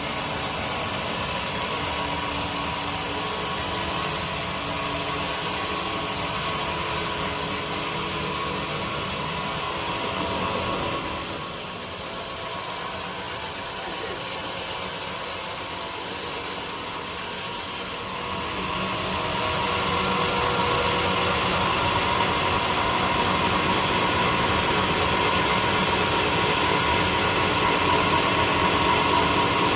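A power tool working wood, running steadily with a hissing, rasping sound. The sound changes abruptly about a third of the way in and again just past halfway.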